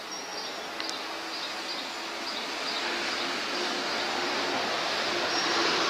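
City street traffic noise: a steady wash that swells as a vehicle passes near the end. There is a short click a little under a second in, and faint high chirps repeat steadily throughout.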